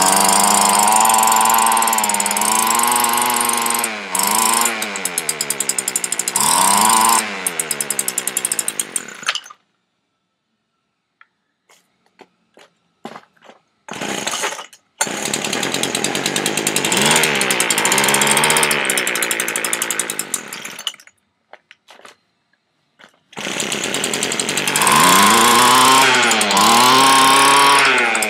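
Small weed eater (string trimmer) engine, off its trimmer, running and being revved up and down by hand. It dies about nine seconds in, catches briefly and dies after a few short clicks, then is restarted twice and runs again with more revving near the end.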